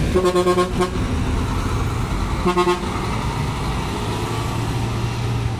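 Scania K360iB coach's horn sounding twice, a pulsing toot about a second long and then a short toot about two and a half seconds in, over the coach's engine running as it pulls away.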